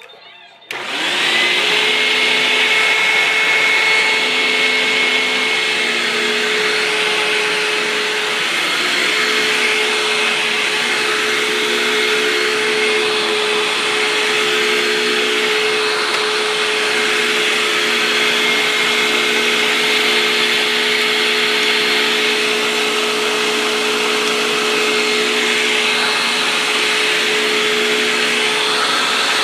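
Hoover WindTunnel upright vacuum cleaner switched on about a second in: its motor spins up with a quick rising whine, then runs steadily and loudly.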